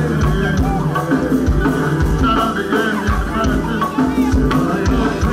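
Live band music: a driving drum beat and bass with a singing voice over it.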